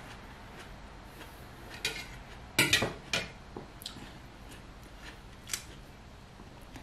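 Hands breaking up pieces of watermelon over a serving plate: a handful of short, sharp clicks, the loudest cluster about two and a half seconds in.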